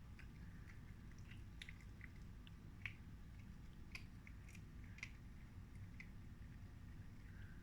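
Cat chewing a mouse: faint, irregular crunching and clicking bites, the strongest about three, four and five seconds in.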